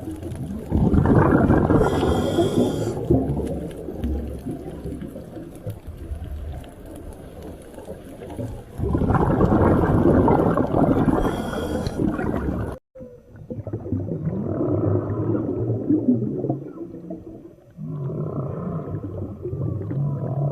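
Underwater ocean recording: low, rough rumbling that swells loud twice. It cuts off suddenly, and a different passage of low droning tones follows, with a few short gliding calls near the end.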